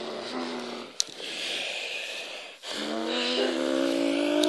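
A person's voice making a drawn-out race sound effect by mouth: a short held note, a click and a breathy hiss, then a long note that slowly rises in pitch and grows louder from about three seconds in.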